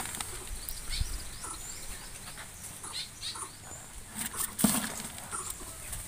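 Aviary birds: scattered short high chirps and the flutter of wings, with one louder rustle about four and a half seconds in.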